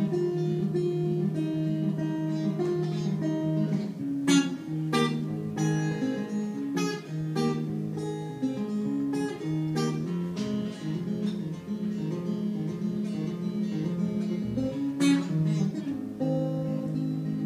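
Solo acoustic guitar playing an instrumental passage of strummed and picked chords, with a handful of sharper, louder strums.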